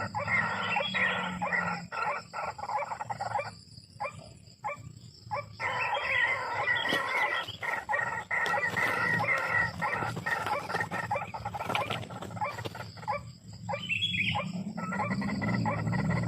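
White-breasted waterhen (ruak-ruak) calling: a fast run of harsh, repeated croaking notes, with brief lulls about four seconds in and near fourteen seconds.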